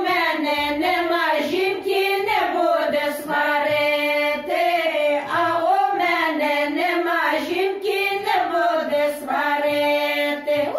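Four older women singing Ukrainian kolomyiky together without accompaniment, in long held folk-style phrases.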